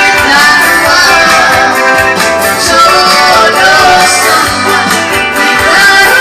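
A song playing: a singing voice over guitar accompaniment.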